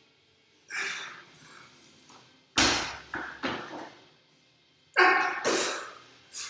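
A weightlifter's loud, noisy breaths between reps of a 120 kg barbell clean complex. About two and a half seconds in, the loaded barbell with bumper plates lands on the rubber gym floor with a deep thud, followed by two smaller bounces.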